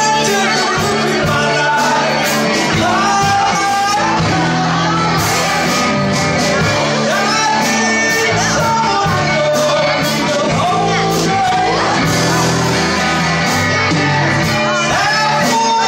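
Live band playing a rock song through a PA: electric guitar and a man singing into a microphone, all amplified.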